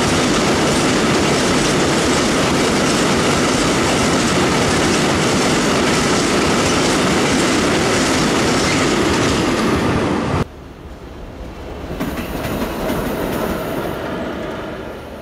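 A train passing close by over a level crossing, wheels clattering loudly on the rails. About ten seconds in, the sound cuts off abruptly to a quieter scene.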